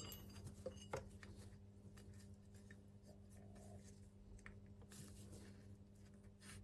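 Faint rubbing and small clicks of fingers working a rubber seal into a Tokico brake caliper bore, with a sharp clink at the start and another about a second in, over a steady low hum.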